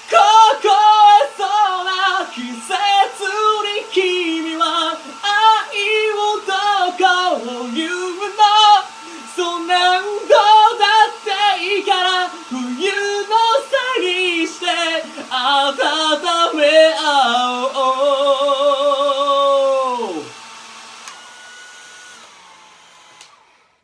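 A solo voice singing a melody without accompaniment over the steady hum of a hair dryer. It ends on a long held note with vibrato that drops off about 20 seconds in, and the dryer's hum winds down near the end.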